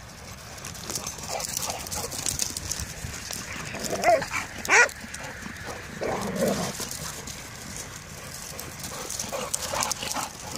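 Dogs at rough play, barking: two loud, sharp barks about four and five seconds in, then a lower bark around six seconds.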